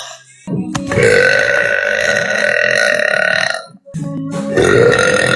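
A young woman burping loudly: one long, drawn-out burp of about three seconds, then a second one starting about four seconds in.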